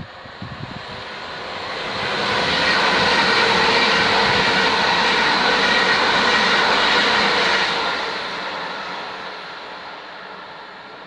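A train passing through the station at speed: the rush of noise builds over about two seconds, holds steady for about five seconds, then fades away.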